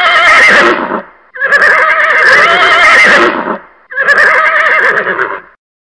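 A horse whinnying: three loud, quavering neighs in a row, the middle one the longest.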